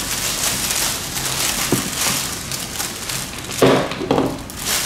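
Thin plastic carrier bag rustling and crinkling as plastic surprise eggs are pulled out of it, with a few knocks as eggs are set down on a wooden table, the loudest about three and a half seconds in.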